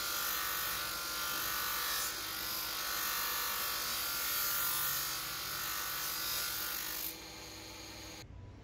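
Steady hissing of a small steel knife blade held against a spinning abrasive wheel on a bench motor, with a steady motor hum underneath. The sound drops sharply about seven seconds in.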